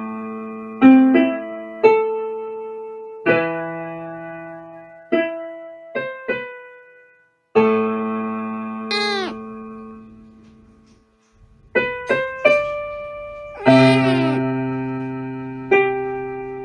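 Slow piano music: chords and single notes struck and left to fade, with a short pause in the middle and a few sliding, bending tones.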